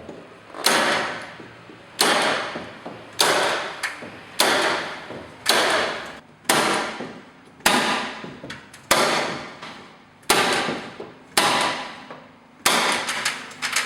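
Staple gun firing staples through a PVC plastering bead into plasterboard: eleven sharp shots at an even pace of about one a second.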